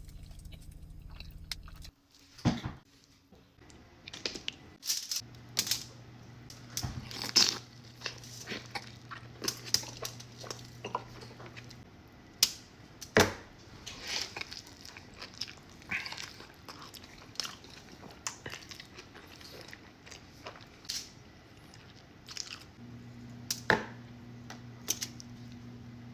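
Close-miked mukbang eating: a person chewing and biting into food, with irregular wet mouth clicks and crisp crunches.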